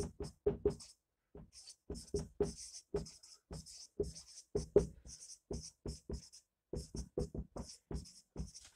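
Dry-erase marker writing on a whiteboard: a quick run of short strokes, each a brief scratch with a light tap, as words are written out.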